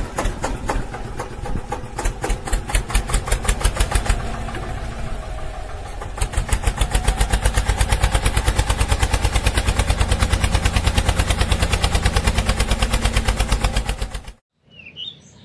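Tractor-type engine running with a rapid, even pulsing beat, heavy in the bass, that steadies and grows louder about six seconds in, then cuts off abruptly near the end.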